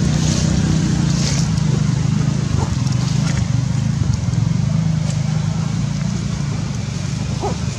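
An engine running steadily without revving: a constant low hum.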